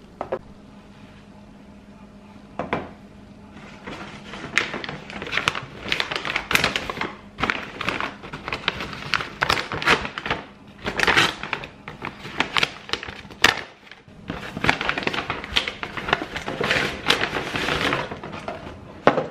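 Paper takeaway bag rustling and crinkling on and off as it is opened and hands rummage inside, with a few sharp knocks.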